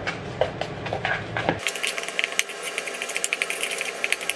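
Spoon stirring dry oats and powders in a plastic mixing bowl: a run of quick clicks and scrapes that gets denser and brighter about a second and a half in.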